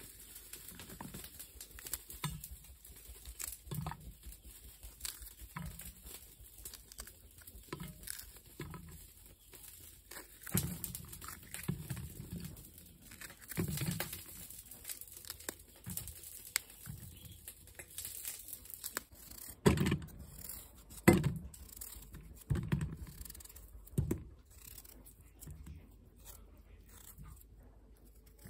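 Kitchen knife cutting through fresh chili peppers, with irregular clicks, crunches and knocks as the pieces drop onto a stainless steel plate; the loudest knocks come a little past the middle.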